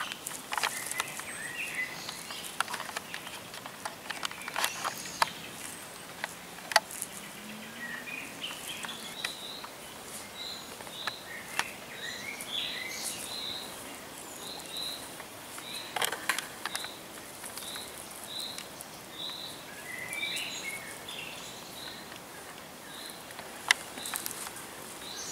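Outdoor birdsong: one bird repeats a short high note a little under twice a second through much of the time, with other chirps around it. Occasional sharp clicks and a steady background hiss.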